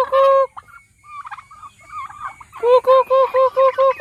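Domestic turkeys calling: a quick run of evenly spaced, same-pitched notes that stops about half a second in, softer scattered calls, then another run of about seven notes starting about two and a half seconds in.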